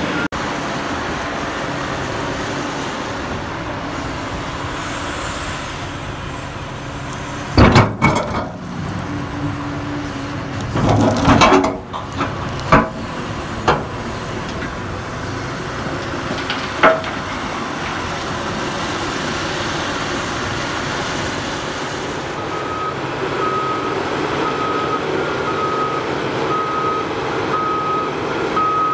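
Caterpillar 6015B hydraulic mining excavator running steadily, with a series of loud knocks and clanks from about 8 to 17 seconds in as the bucket digs into rocky ground. From about 23 seconds in, a backup alarm beeps steadily, about once a second.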